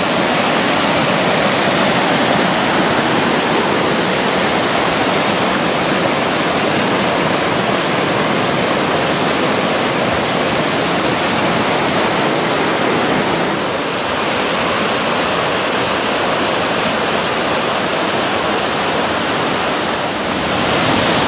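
Mountain river rushing over boulders in white-water rapids, a loud, steady rush of water.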